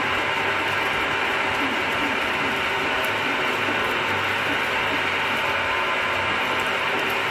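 Geared-head milling machine running at 200 RPM while a 40 mm drill bit bores a large hole under manual quill feed. The gear noise and the cutting sound are steady and unbroken.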